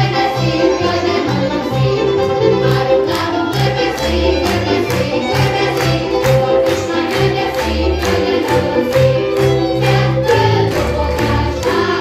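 A group of children singing together over a folk-style instrumental accompaniment that includes fiddle, with a steady beat.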